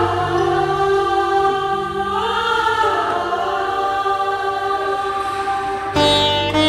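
Background music: slow, sustained choir-like voices over a held drone, changing about six seconds in to a plucked-string instrument like a sitar.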